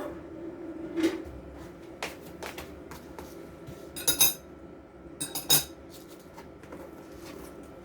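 Metal utensils clinking and scraping against a dish while salad is mixed, with a few sharp ringing clinks about four and five and a half seconds in.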